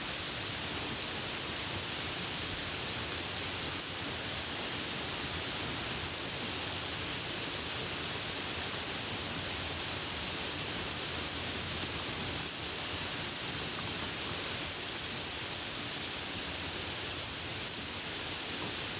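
Steady heavy rain, an even unbroken hiss with no thunder.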